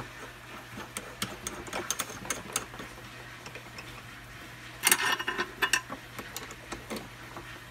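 Drill-press chuck being handled and tightened with a chuck key: scattered light clicks, then a louder burst of metal clicking and rattling about five seconds in, over a low steady hum.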